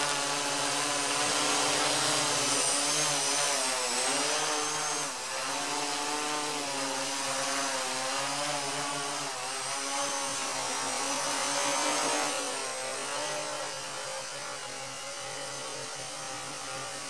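Quadcopter's electric motors and propellers buzzing as it hovers, the pitch wavering up and down as the motor speeds change, with a thin high whine above. The sound grows fainter after about twelve seconds.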